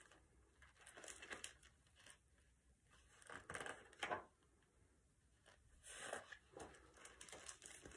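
Faint rustling of picture-book pages being handled and turned, in a few short soft bursts.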